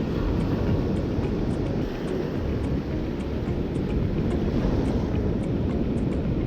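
Steady low rumble of wind buffeting the microphone, with ocean surf behind it.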